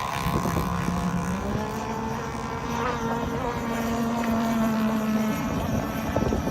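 Small two-stroke gasoline engine of a radio-controlled model boat running steadily, its tone stepping up in pitch a little in the first half.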